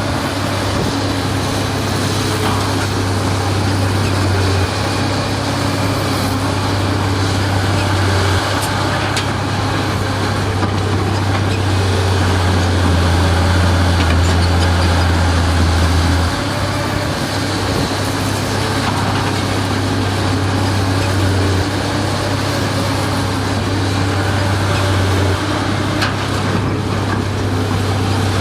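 Heavy diesel earthmoving machinery running steadily under load, a deep engine drone with a broad mechanical clatter over it, its level changing abruptly several times.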